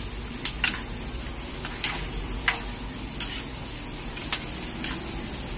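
Metal spatula stirring chop suey vegetables in a metal wok, with short scrapes and knocks against the pan about every half second to second over a steady sizzle of the nearly cooked vegetables.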